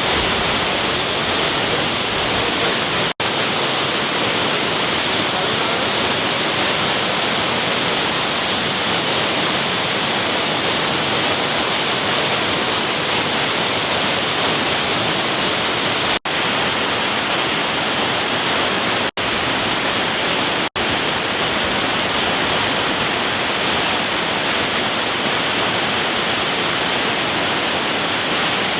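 Loud, steady rush of falling water from the Salto Kawi waterfalls. It cuts out for an instant four times.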